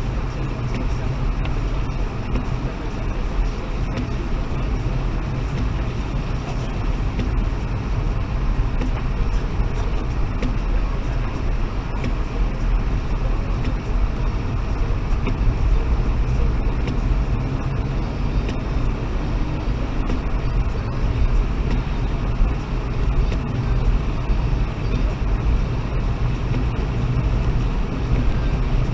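Steady in-cabin running noise of a Toyota Aygo driving on a wet road: engine and tyre noise, heaviest in the low end, without let-up.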